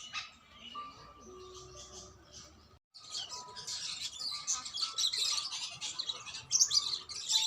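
Many small birds chirping and twittering at once in a dense chorus. It breaks off briefly about three seconds in, then comes back louder and busier.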